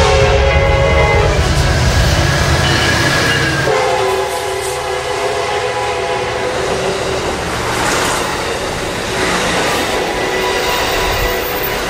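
Train air horn sounding a chord of several tones over the rumble of a passing train: one blast cuts off about a second and a half in, and another begins about four seconds in and holds to the end.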